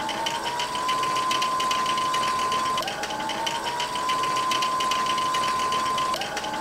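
Brother CS6000i sewing machine running its bobbin winder at the foot pedal: a motor whine that climbs in pitch for about a second and then holds steady, over a fast light rattle. The whine drops and climbs again about three seconds in, and once more near the end.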